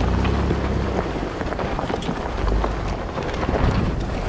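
Off-road vehicle's engine running at low speed, heard from inside the cab, with many irregular knocks and rattles as the tyres crawl over rocks and gravel.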